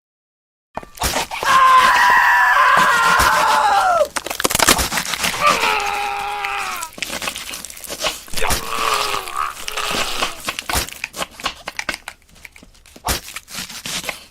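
A man screaming: one long loud scream that drops in pitch as it ends, then several shorter cries that fall away, over a run of sharp cracking and crunching noises that thin out near the end.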